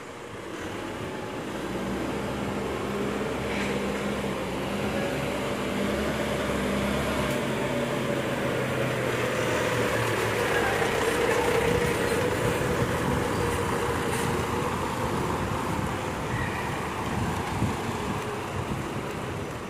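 Volvo FE 300 recycling truck's six-cylinder diesel engine running as the truck drives up and passes close by. It gets louder toward the middle, with a low hum early on and then a whine that rises and falls in pitch.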